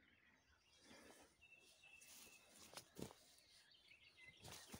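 Near silence: faint bird calls, with one thin held whistle lasting about a second a little over a second in, and a few soft knocks and rustles near the end.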